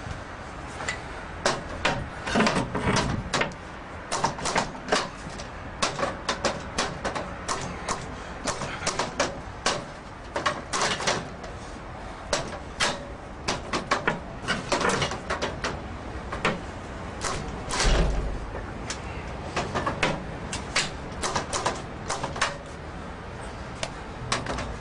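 Steel pry bar levering and knocking against the lock stile of an Xpanda steel expanding security gate: rapid, irregular metal clanks and rattles, with one heavier knock near the end.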